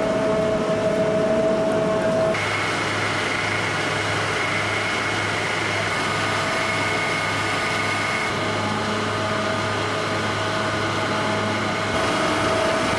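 Olive oil mill machinery running with a steady mechanical hum, its sound changing abruptly about two seconds in and again near the end.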